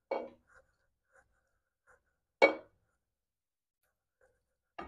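Kitchen utensil knocking and clinking against the slow cooker's pot as shredded beef is dropped back in: a few soft taps, then one sharp clink about two and a half seconds in, and a light tap near the end.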